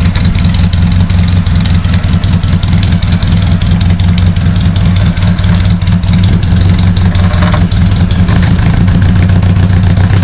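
Off-road 4x4's engine running steadily at idle with a deep, even note.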